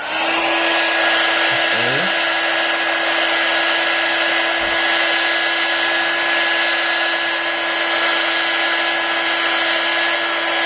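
Heat gun blowing steadily with a constant hiss and a steady motor hum, heating the iPad's glass to soften the adhesive so the glass lifts.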